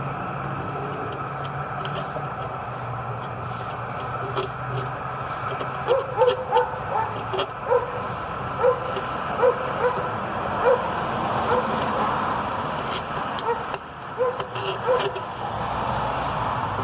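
A small dog barking and yipping repeatedly, starting about six seconds in, over a steady low hum.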